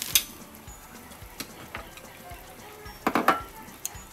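Light background music, with a sharp clack of a cooking utensil against a pan right at the start and a quick cluster of clatters about three seconds in.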